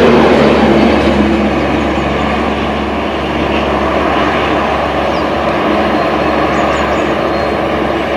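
A train's passenger coaches rolling past on the track: a steady rush of wheel and rail noise that eases a little over the first few seconds.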